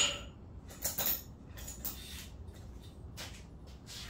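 Geodes knocking and clinking as they are handled: a sharp hit at the start, then several lighter, separate clicks spread through the next few seconds.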